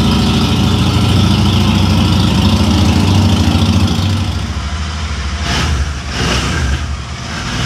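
Motorcycle engine idling with a steady low pulse, easing off slightly about four seconds in, with two brief surges soon after.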